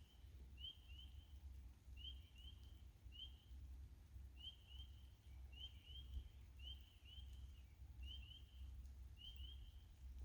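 Faint chorus of spring peepers calling: short, high, rising peeps, often two in quick succession, repeating every second or so, over a low rumble.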